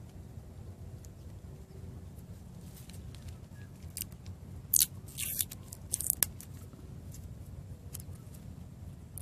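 A quick cluster of sharp cracks and pops from small firecrackers going off, lasting under two seconds about five seconds in, over a steady low rumble.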